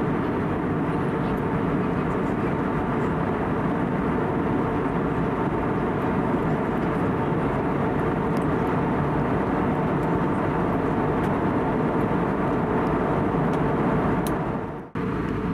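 Steady cabin noise of an Airbus A320neo in flight: airflow and the hum of its CFM LEAP-1A engines, with a faint steady drone in it. It drops out suddenly for a moment near the end, then carries on unchanged.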